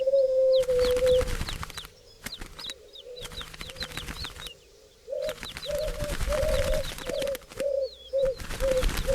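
Doves cooing: one long low coo, then after a pause a run of about nine short, evenly repeated coos. Small birds give quick high falling chirps over them.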